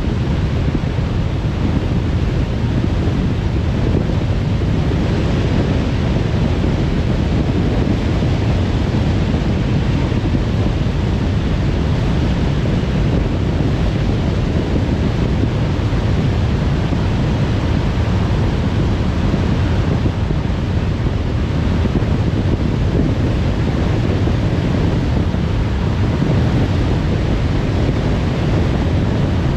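Steady road and wind noise of a car driving at speed on a motorway: an even, unbroken rumble with a hiss on top, with no single events.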